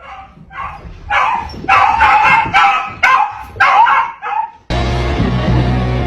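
A dog giving a run of short, high-pitched vocal calls that bend up and down in pitch and get louder as they go. Music cuts in suddenly about three-quarters of the way through.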